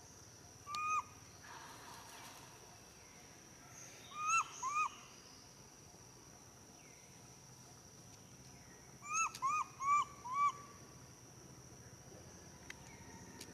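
An animal's short whistled hoots, each rising then dropping in pitch: one near the start, a pair about four seconds in, and a run of four at around nine to ten seconds. Under them runs a steady high insect drone.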